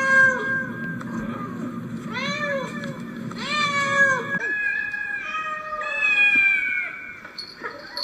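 Domestic cat meowing repeatedly: several short, arching meows, then a longer drawn-out meow near the end.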